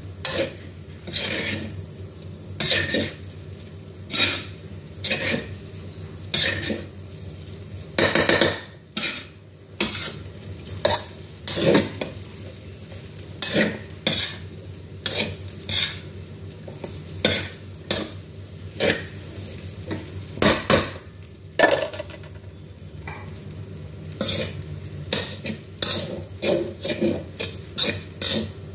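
Metal spatula scraping and clanking against a large metal wok as fried rice is stir-fried and tossed. The strokes come about once or twice a second, with a quick flurry about eight seconds in, over a steady sizzle.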